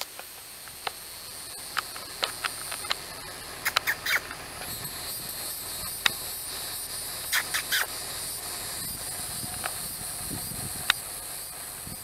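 Steady high-pitched insect buzzing that swells about five seconds in, with scattered short, sharp chirps and clicks over it.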